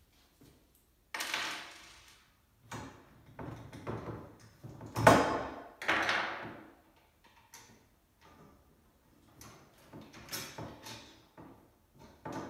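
Knocks, clunks and scraping clatter of a wheelbarrow's tubular metal frame and its bolts being handled on a wooden tabletop during assembly, in a handful of separate bursts, the loudest about five seconds in.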